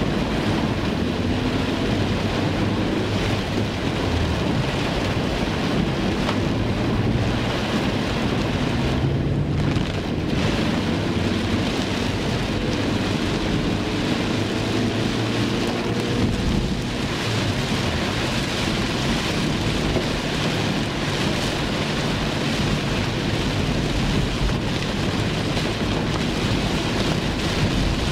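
Heavy rain drumming steadily on a car's roof and windscreen, heard from inside the moving car, with the car's low running rumble underneath.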